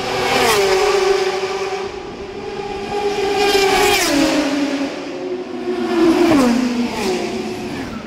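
Race cars passing at full speed one after another, the first a red Ferrari GT car. Each engine note holds and then drops sharply in pitch as the car goes by, about a second, four seconds and six and a half seconds in.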